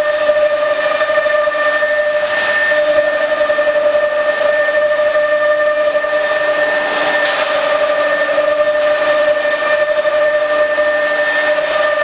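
CNC wood router with an automatic tool changer running, its spindle giving a steady high whine over constant machine noise.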